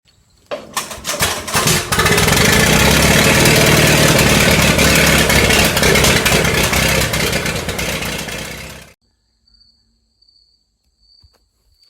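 1928 Farmall Regular's four-cylinder engine starting: a few sputtering fires, then running steadily and loud before it tapers off and cuts out suddenly.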